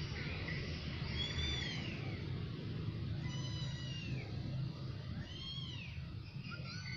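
Cat meowing: three high-pitched meows about two seconds apart, each rising then falling in pitch, over a steady low rumble.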